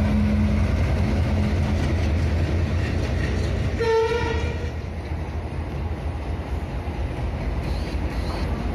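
Train running with a steady rumble, and a short single horn toot about four seconds in.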